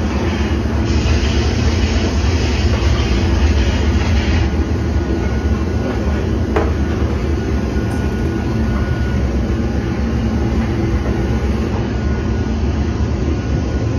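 Steady, loud mechanical rumble with a hiss over it, with one short click about six and a half seconds in.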